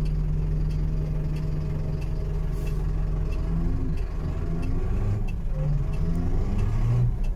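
Mercedes-Benz Atego 1018's four-cylinder diesel idling in neutral, heard from inside the cab. A relay ticks about every three-quarters of a second as the hazard lights flash, and the engine note wavers over the last few seconds.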